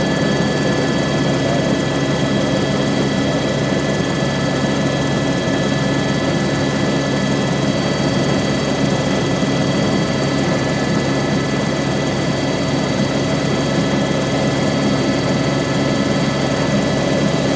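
Cabin noise inside an Airbus H125 (AS350 B3e) helicopter in flight, its single turboshaft engine and rotors giving a loud, steady drone with several high whining tones over a low hum.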